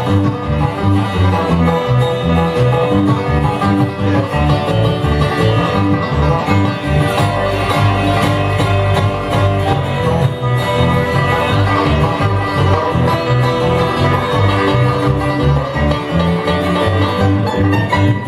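Live bluegrass band playing a fast song with plucked strings over a moving bass line.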